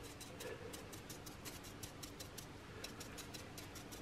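Faint, rapid, even ticking, about six ticks a second, over a low steady hum.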